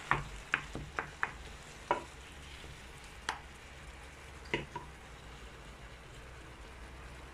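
Wooden spoon stirring minced meat and onion frying in oil in a non-stick pan, with a steady low sizzle and a few sharp knocks of the spoon against the pan, most of them in the first two seconds. The meat is frying in oil alone, with no water added.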